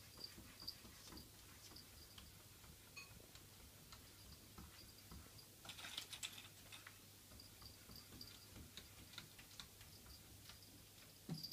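Near silence with faint, scattered light clicks and ticks, and a short flurry of them about six seconds in.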